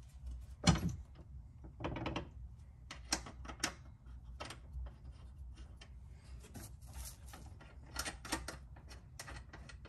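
Scattered small metallic clicks and clinks of a nut being finger-threaded onto the bolt of a rear lateral arm brace and the brace being shifted by hand, with a sharper knock about a second in.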